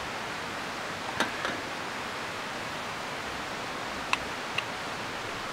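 Steady, even hiss with four light clicks and knocks, two about a second in and two about four seconds in, as a small camping lantern is handled and set down.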